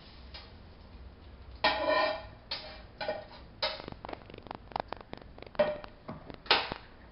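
A metal utensil scraping and knocking against a frying pan as scrambled eggs are stirred or scooped out, with a string of irregular clacks and scrapes, a few of them briefly ringing.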